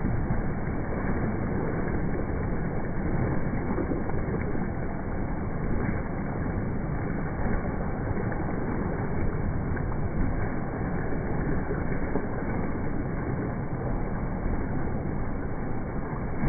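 Steady splashing and churning water from a swimmer's kicking, as a continuous rushing noise with no distinct beat.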